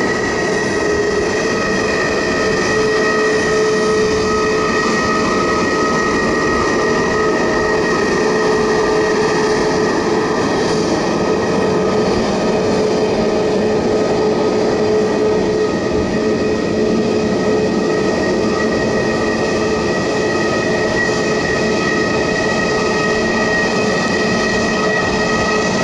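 Airbus A320neo's jet engines running steadily at low power: a constant whine of several tones over an even rush of noise, with no build-up and no fading.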